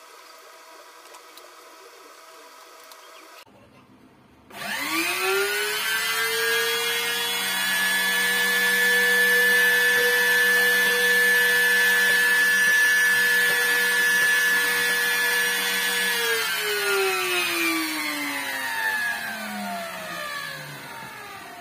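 Electric motor of a homemade wooden mortising machine (pantorouter) switched on, spinning up to speed with a rising whine, running steadily for about eleven seconds, then switched off and coasting down with a falling whine over several seconds.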